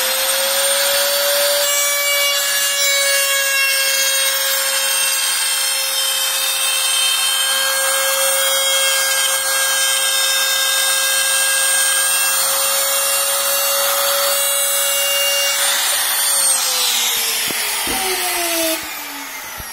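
Makita 3709 trim router running at full speed with a steady high whine, its bit cutting a rabbet of about 2 mm into the edge of a pine board; the rasping of the cut joins the whine about two seconds in and stops a few seconds before the end. The router is then switched off and its whine falls as it spins down.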